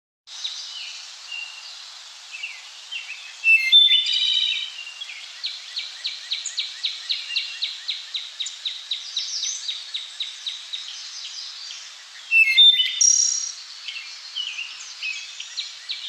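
Recording of a wood thrush singing: two loud, complex song phrases, about three and a half seconds in and again about twelve and a half seconds in. Each phrase is made of rising and falling notes sung at once from the two sides of its syrinx. Between the phrases runs an even series of short chirps at about three a second.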